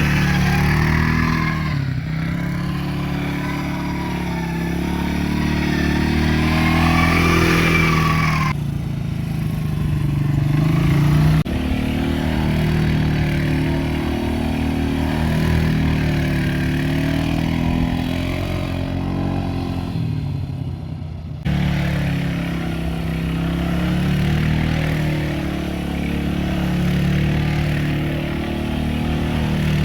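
Quad bike engine running under load, its pitch rising and falling as the throttle is worked. The sound breaks off abruptly and resumes twice.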